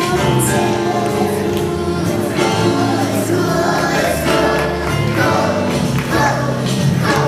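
A choir sings a song together over instrumental accompaniment, the voices holding sustained notes.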